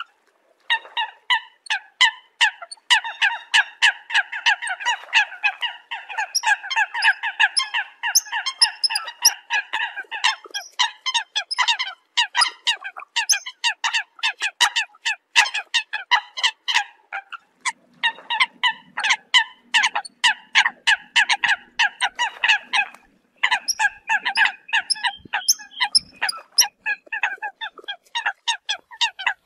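A flock of Eurasian coots calling: many short, sharp calls overlapping in a rapid, nearly unbroken chatter, with a few brief pauses.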